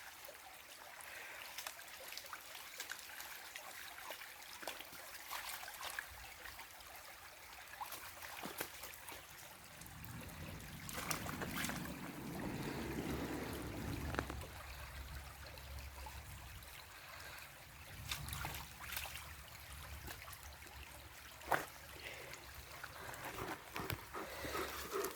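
Shallow river water trickling and burbling steadily over stones, faint, with a few sharp ticks. About ten seconds in a low rumble swells for a few seconds, then fades.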